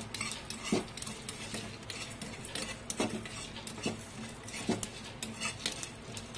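Metal spoon stirring dry-roasted coriander seeds, cumin, black peppercorns and dried red chillies in a frying pan: irregular scraping and rattling of the seeds across the pan, with a few sharper clinks of the spoon against the pan.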